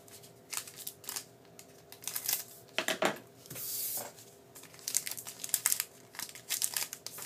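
Foil hockey card pack crinkling as it is handled, in a run of sharp crackles, and tearing open with a longer rip about three and a half seconds in.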